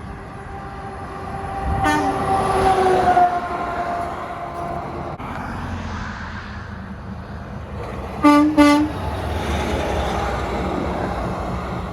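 Train horn sounding over the rumble of a passing train, its pitch sagging slightly as it fades. About eight seconds in come two short, loud horn blasts.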